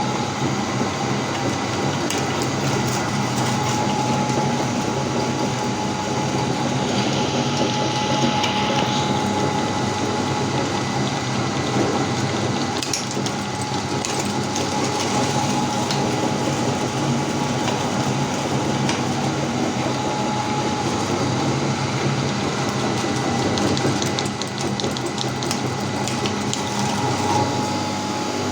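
Meat grinder running steadily while grinding sweets: a constant motor hum with a steady high whine over dense grinding noise.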